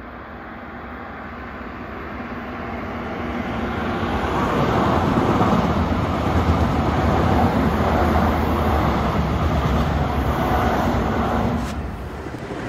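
Berlin S-Bahn electric train approaching and passing beneath, its rolling noise growing louder over about four seconds and holding steady as the cars go by, then cutting off suddenly near the end.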